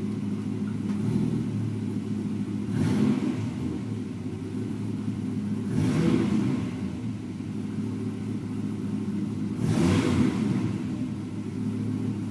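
Dodge SRT-10's V10 engine idling while stationary, revved in three short throttle blips a few seconds apart.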